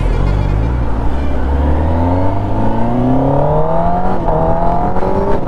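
Superbike engine accelerating hard, its pitch climbing steadily for about four seconds, over a low rumble of road and wind noise.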